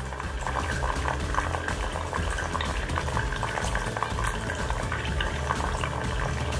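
Water trickling and splashing steadily in a small DIY tabletop waterfall fountain fed by a mini submersible pump, over a low steady hum.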